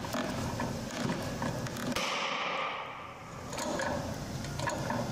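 A wooden C-clamp's screw being tightened hard under a load of about 110 kg, the wood and threads creaking and clicking with the strain.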